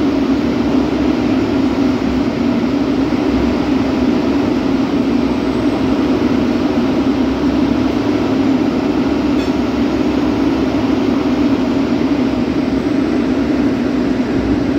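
Steady rumble of a train rolling on the rails as a goods train of tank wagons passes close alongside. The sound holds an even, strong low drone and does not change.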